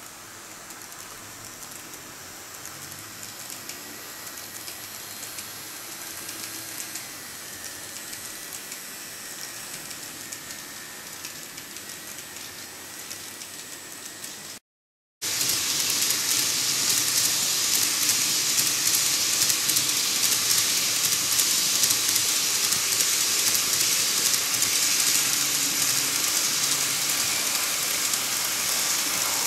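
KATO KiHa 283 series N-gauge model train running along the track, a steady hissing rattle of wheels on the rails. It cuts out briefly about halfway, then comes back louder.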